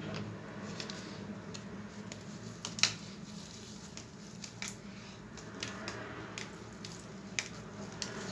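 A cloth sheet face mask soaked with milk and grapefruit juice squelching wetly as it is squeezed, unfolded and pressed onto the face, with scattered small wet clicks. A sharper click comes a little under three seconds in.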